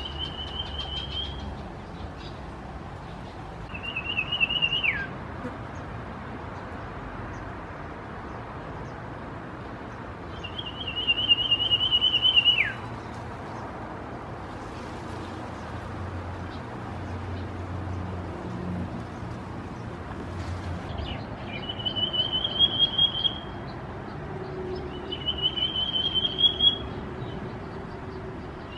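Common iora calling: a series of quavering, trilled whistled notes at a fairly high pitch, given about five times with pauses between. Two of the phrases end in a sharp drop in pitch.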